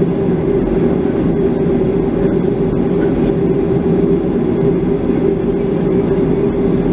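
Boeing 737-500 cabin noise on the ground: the CFM56-3 turbofans running at idle, heard through the fuselage as a steady rumble and drone.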